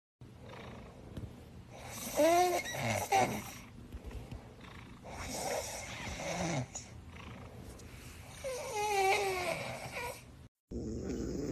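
A sleeping cat snoring: three slow snoring breaths about three seconds apart, each with a whistling note that rises and falls.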